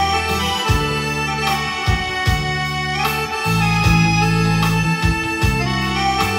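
Korg arranger keyboard played live: a sustained lead melody over a bass line and drum beat.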